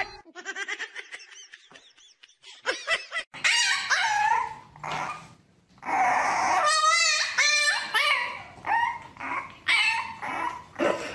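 A dog whining and yipping in a string of high, wavering cries, starting a few seconds in, with one fast quavering cry in the middle.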